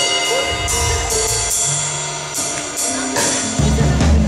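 Live band instruments being played at a soundcheck: repeated high percussion strokes over held bass notes, with the bass and low drums coming in much louder about three and a half seconds in.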